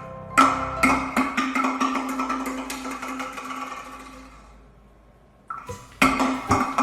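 Background music of quick plucked-string notes. It fades out about five seconds in, and a new phrase starts a second later.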